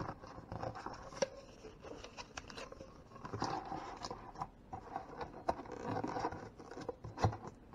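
Hands shifting a rolled paper poster and plastic-wrapped contents inside a box: soft rustling and scraping of paper and plastic, with scattered small clicks and taps.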